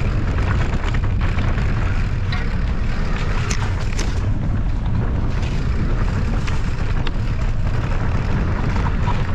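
Steady low wind rumble buffeting the microphone while riding a mountain bike, with scattered clicks and rattles from the bike over rough ground.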